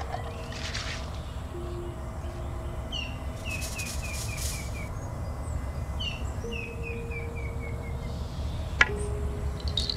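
A bird calling twice, each call a quick run of about seven short chirps stepping down in pitch, over a steady low rumble. A single sharp click sounds near the end.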